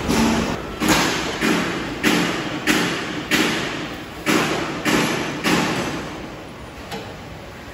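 A series of sharp knocks on metal, roughly one every half-second to second, each with a short ringing tail, from tool work fastening the diesel engine onto the thresher's frame. The knocks grow weaker near the end.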